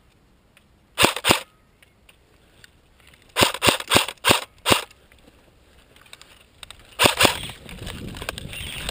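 Electric airsoft AK (CYMA CM.028 AEG) firing single shots on semi-auto: two shots about a second in, a quick string of about six around the middle, and two more near the end. A rustling noise of movement through grass follows the last shots.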